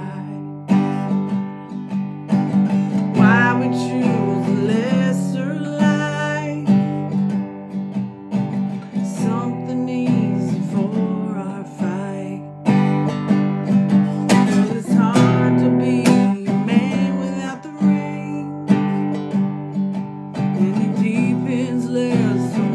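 Acoustic guitar strumming with a voice singing over it.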